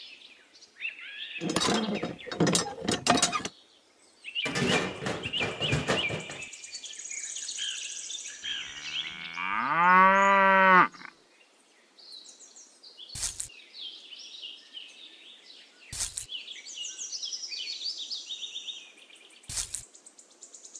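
A cow mooing once, about nine seconds in: one long call that rises and then holds, the loudest sound here. Around it are two earlier rough bursts of sound, high bird-like chirping, and three sharp knocks.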